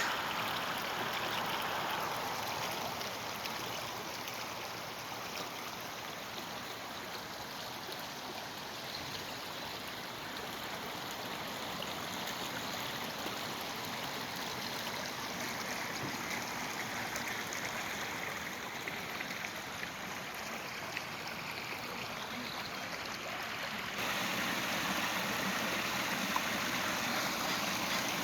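Steady rushing of running water, an even hiss with no pitch, turning abruptly louder about 24 seconds in.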